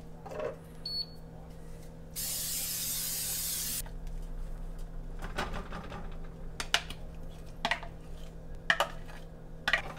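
Aerosol cooking spray hissing onto a nonstick griddle pan in one burst of about a second and a half, a couple of seconds in. Afterwards come several sharp knocks and scrapes of a spoon against a cup as batter is scooped out onto the pan.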